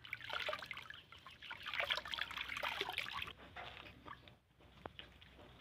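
Water splashing and trickling in a plastic basin as a baby monkey is dipped and rubbed by hand. The splashing is busy for about three seconds, then quieter with a few small splashes.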